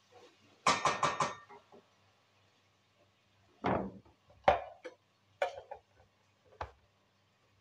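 Kitchen utensils clattering: a quick run of knocks and scrapes of a wooden spoon in a steel cooking pot, then a few separate knocks and clinks of items handled on the counter.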